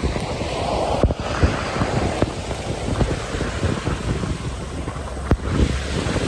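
Wind buffeting the microphone in a snowstorm, a steady rushing noise with scattered small taps and a couple of sharper clicks.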